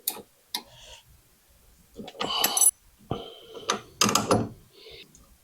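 Sharp clicks and clatters of hand tools and caster hardware being worked on a workbench: a single click at the start and another about half a second in, then two quick clusters of clattering around two and four seconds in.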